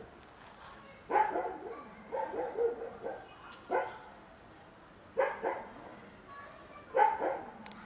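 A cat meowing repeatedly, short meows about every one to two seconds.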